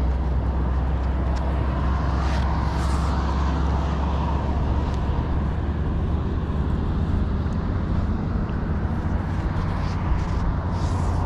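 Steady rumble of road traffic on the causeway, with one vehicle swelling and fading about two to four seconds in.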